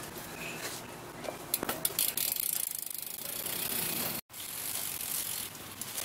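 Rear hub of a BMX bike, a Shadow BTR, ratcheting in a rapid run of even clicks as the wheel turns without being pedalled. The clicking is densest about two to three seconds in.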